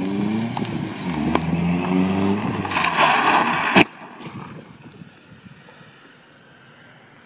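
Car engine revving up and down as the car drifts, then about a second of loud tyre skid noise that ends in a sharp bang just before four seconds in. After that only a low, even background remains.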